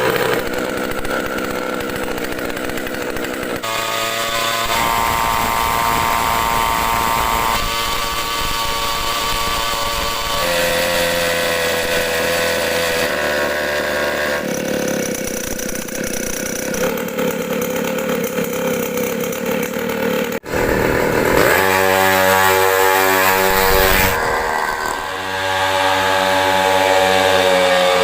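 Small 50cc engine on a drag bicycle running and revving, in a series of short edited clips, so its pitch jumps every few seconds; it cuts out briefly about two-thirds of the way through, and the revs climb near the end.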